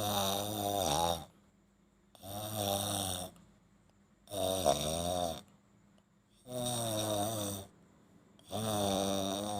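A man snoring in a steady rhythm, one snore about every two seconds, five in all. Each snore lasts about a second and has a wavering pitch.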